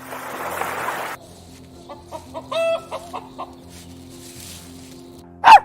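A chicken clucking: a few short clucks with one longer, louder cluck about two and a half seconds in. A rushing noise fills the first second, and a single loud dog bark comes right at the end.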